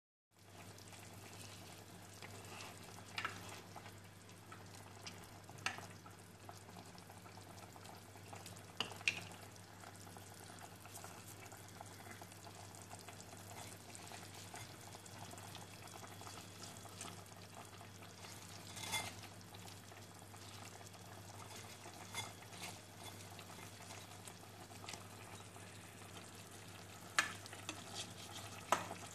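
Pot of chicken soup simmering on a stove, a faint steady bubbling hiss over a constant low hum, with a few sharp clicks and knocks now and then.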